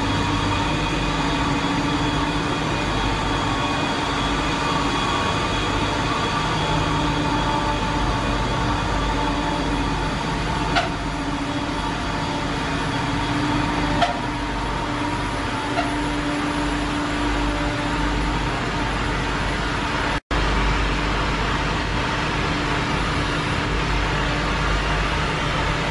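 Ship's engine-room machinery running: a steady, loud drone with a low rumble and several steady hum tones, with a couple of faint clicks partway through. The sound cuts out for an instant about twenty seconds in.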